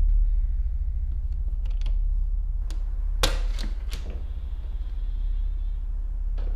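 Steady low hum under a few sharp clicks and knocks, the loudest about three seconds in, then a faint high creak as a closet door is eased open.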